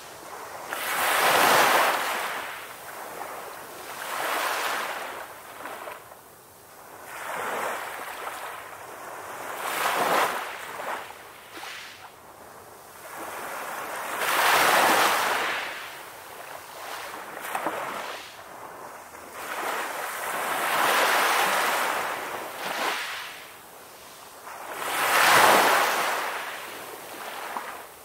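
Ocean surf: waves breaking and washing up a shore, the rushing noise rising and falling in surges every few seconds. The biggest surges come near the start, midway and near the end.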